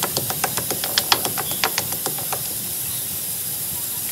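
Small onions being cut against a curved floor-mounted kitchen blade: quick sharp clicks, about five a second, stopping about two and a half seconds in. A steady hiss runs underneath.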